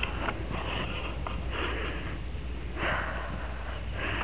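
Wind rumbling steadily on the microphone, with several short breathy sniffs from the person holding the camera in the cold.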